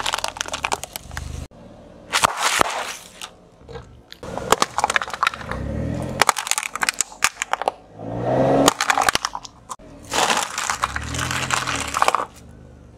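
A car tyre rolling over and crushing hollow plastic objects such as bottles and plastic mugs, in several separate spells of cracking, snapping and crunching with short pauses between them.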